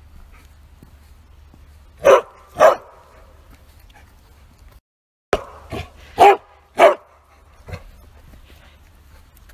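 Bearded collie barking in short, loud barks: two in quick succession about two seconds in, then, after a brief gap, two more, followed by a softer last bark.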